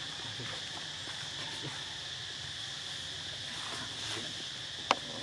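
Steady high-pitched chorus of forest insects, with a single sharp click near the end.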